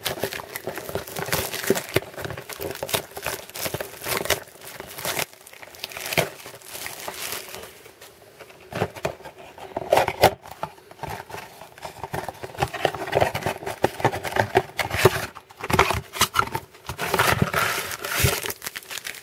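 Cardboard trading-card box being handled and turned over in the hands: irregular crinkling, scraping and tapping.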